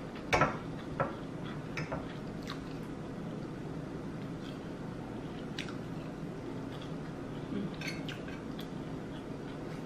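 A person chewing food close to the microphone, mouth sounds with a few short sharp clicks scattered through, over a steady low hum.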